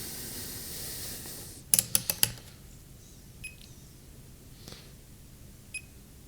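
A fading hiss, then a quick run of four or five sharp clicks about two seconds in, followed by a few faint ticks: small tools and parts being handled on an electronics repair bench.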